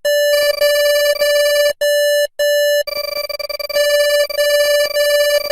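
French Polynesia's emergency alert tone: a steady, buzzy electronic beep on one pitch. It cuts out briefly twice a little under two seconds in, then flutters rapidly in loudness for a second or so before steadying again.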